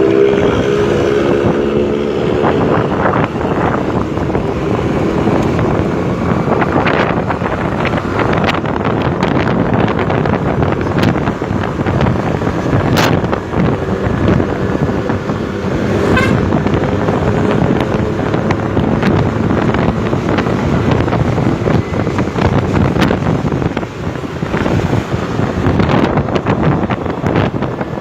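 Bus engine running through a snoring ('ngorok') exhaust, with wind buffeting the microphone. A horn tone fades out in the first second or two.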